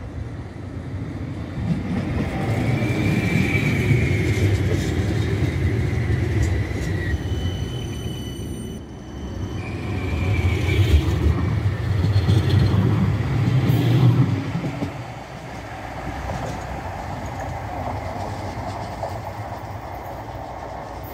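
CAF Urbos 3 light-rail tram passing close by on steel rails: a steady rumble of wheels, loudest about ten to fourteen seconds in, with a high wheel squeal coming and going. The sound dies down after about fifteen seconds.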